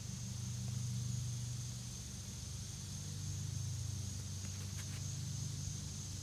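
Steady low machine hum with a constant high, thin insect-like drone above it, and a few faint ticks near the end.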